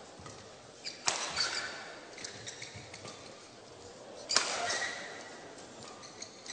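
Badminton rackets striking a shuttlecock during a fast doubles rally: two sharp cracks, about a second in and just after four seconds, with fainter hits between, echoing in a large hall. Short high squeaks of players' shoes on the court surface follow the hits.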